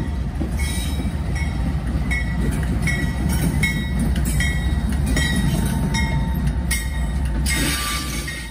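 A single Norfolk Southern diesel locomotive running light, with no cars, passes by. Its deep engine rumble swells and then eases, with sharp metallic clicks about twice a second.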